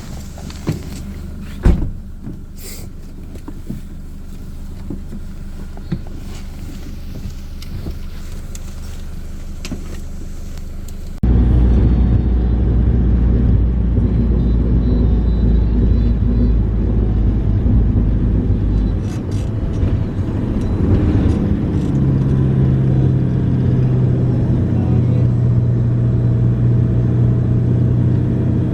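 Motor vehicle on the move, heard as a steady low road and engine rumble. It is quieter with a few sharp knocks for the first several seconds, then jumps suddenly much louder about eleven seconds in, with a steady low engine tone coming in over the last several seconds.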